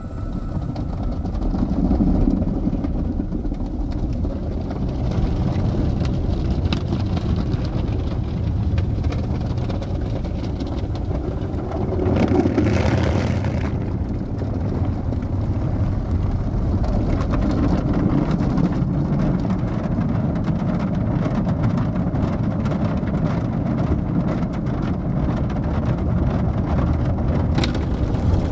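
Automatic car wash heard from inside the car's cabin: a steady rumbling rush of water spray and wash machinery working over the car, with a louder hissing swell for a couple of seconds about halfway through.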